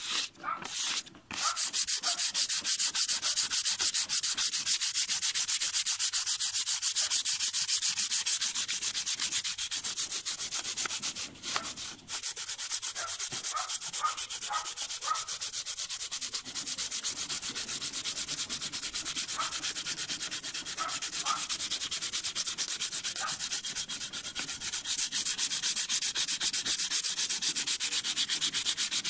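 Fine sandpaper rubbed by hand in quick back-and-forth strokes over a carved wooden border, sanding back its dried colour. The rubbing pauses briefly twice about eleven to twelve seconds in.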